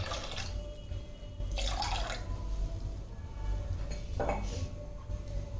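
Water pouring into a pan of boiled toor dal, tailing off about half a second in, followed by two brief splashes, one about 2 seconds in and one near 4 seconds.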